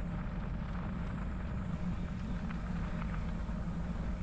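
Bicycle rolling along a wet crushed-stone trail: a steady low rumble of tyres and wind on the microphone, with faint light ticks from the gravel.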